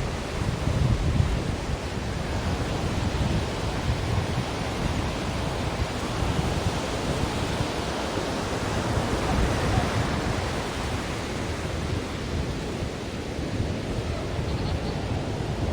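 Ocean surf: a continuous rush of waves breaking and washing in, swelling toward the middle and easing again, over a low rumble.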